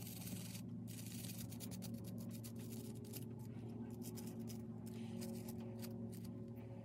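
Small hand wire brush scrubbing the metal truck (wheel-and-axle frame) of a Tyco HO-scale model train caboose: faint, irregular scratchy strokes, over a steady low hum.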